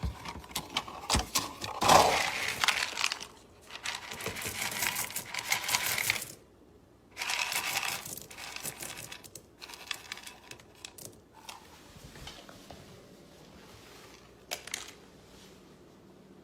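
A dog eating dry food from a bowl: bursts of crunching and clinking with pauses, busiest in the first half, then a few scattered clicks.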